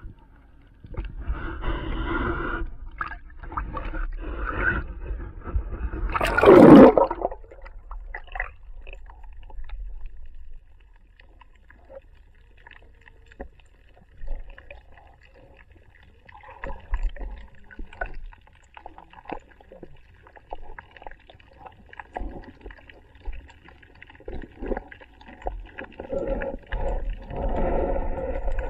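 Sea water sloshing and gurgling around an underwater action camera as it is taken down beneath the surface, with a loud rush of water about seven seconds in. Then muffled underwater sound with scattered faint clicks, and the water noise builds again near the end.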